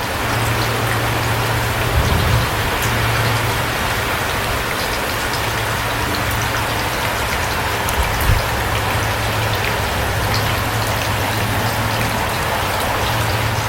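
Steady rain falling, an even hiss with scattered sharp drop ticks, over a low steady hum. Two brief low thumps stand out, about two seconds in and again about eight seconds in.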